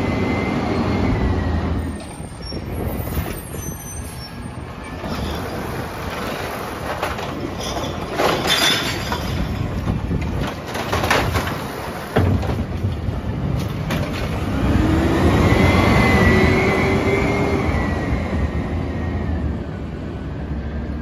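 Natural-gas engine of a Peterbilt 320 automated side-loader garbage truck running with a hydraulic whine that rises and falls as the arm works. In the middle the arm lifts and dumps a plastic recycling cart, with a clatter of contents falling and then one sharp knock. After that the engine revs and the whine climbs again as the truck moves off.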